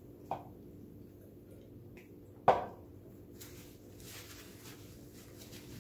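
A single sharp knock on the table about halfway through, then a paper napkin rustling and crinkling as it is handled and pressed to the mouth.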